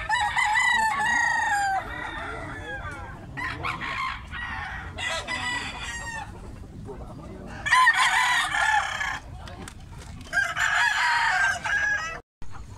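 Gamecocks (roosters) crowing repeatedly: about five crows, each a second or two long, the loudest at the start and near the end.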